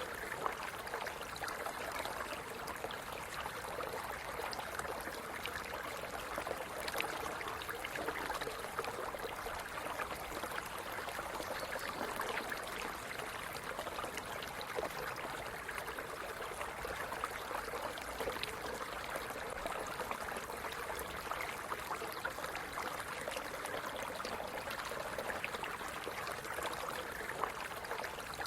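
Stream running over stones, a steady rush of flowing water with constant small splashes, trickles and gurgles.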